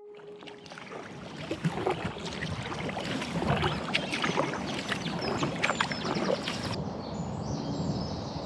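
Double-bladed kayak paddle strokes splashing and dripping, with water rushing along the hull and many short splashes. The sound changes about two-thirds of the way through, and birds chirp near the end.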